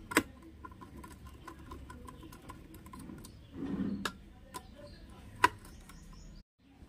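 Small metal tool clicks as a nut driver taps and turns on the screws of a circuit board: a few sharp clicks, the loudest just after the start, with fainter ticks between and a brief duller scrape about four seconds in.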